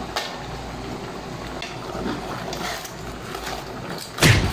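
Large aluminium pot of crabs simmering in coconut milk, a steady hiss with small clicks as the crabs are shifted and stirred with a ladle. One short loud noise comes near the end.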